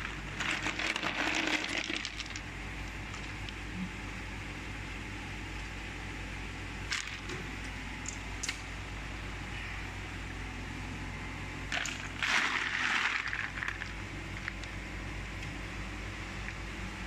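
Tubes of ice clattering and clinking against each other as a hand digs through a pile of them, in two bursts (at the start and about twelve seconds in), with a couple of single clinks between, over the steady hum of running ice-plant machinery.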